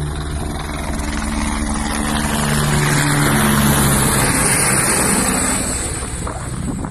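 Helicopter flying low overhead: its rotor and turbine grow louder to a peak as it passes directly above about four seconds in, with a high whine strongest just after, then ease off a little as it moves away.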